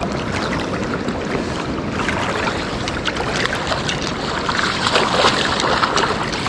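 Steady rushing of flowing creek water, with scattered light ticks over it.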